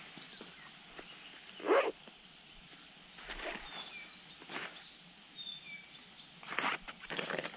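A dog barks outdoors, one loud bark a little under two seconds in and fainter, shorter sounds later, while small birds chirp faintly in the background.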